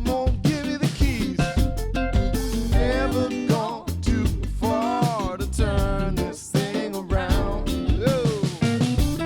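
A soul-funk band mix with drum kit, bass and a gliding melodic line.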